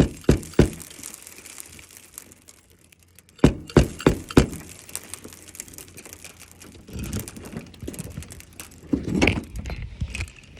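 Hammer driving roofing nails through an asphalt shingle: a quick run of strikes at the start and another run of about five strikes around three and a half seconds in. From about seven seconds in there is rustling and scraping as the shingle is handled.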